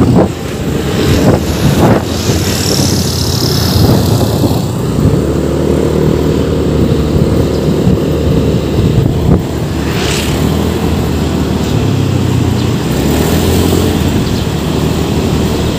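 Motorcycle engine running at cruising speed while riding, heard from the bike itself, with road and wind noise on the microphone. Gusts of wind buffet the microphone in the first couple of seconds, then a steady engine hum comes through more clearly.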